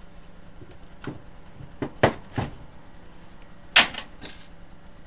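Plastic housing of an AEG 18V 5Ah lithium-ion battery pack being pried apart: a run of sharp clicks and knocks as the side panels' clips snap free and the plastic parts knock against each other and the bench, the loudest snap a little under four seconds in.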